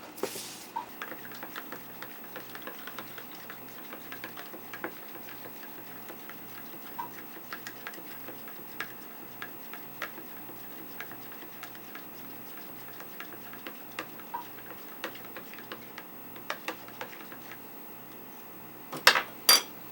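Scattered light clicks and taps over a faint low hum that pulses evenly a couple of times a second, with two louder sharp knocks near the end.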